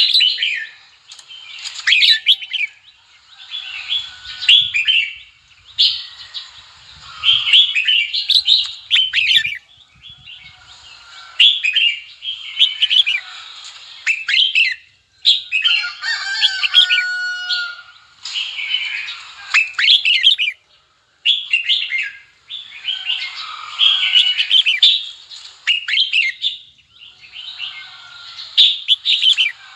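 Red-whiskered bulbul singing: short, quick phrases of rising and falling whistles, repeated one after another with brief gaps, and one longer call of steadier notes about halfway through.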